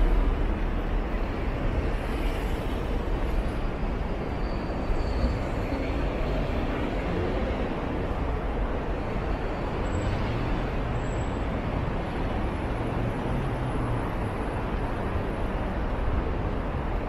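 Steady road traffic noise of a city street: motor vehicles running past with a constant low rumble.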